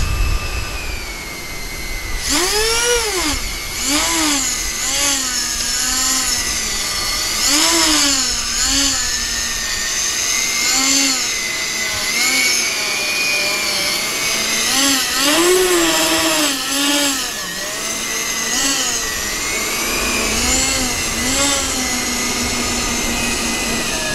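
Electric ducted fans of RC model airliners taxiing: one high whine held fairly steady, with another fan's whine rising and falling in pitch every second or two as its speed changes.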